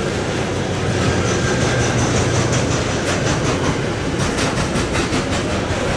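Electric-hauled freight train passing close by on a bridge: a low hum as the locomotive goes by, then a rapid, evenly spaced clatter of wheels as the loaded container and tank-container wagons roll past, from about halfway through.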